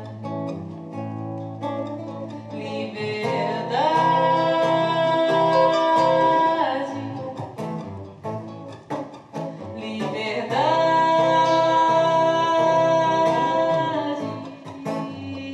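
Classical guitar playing under a woman singing, who holds two long high notes, sliding up into each one.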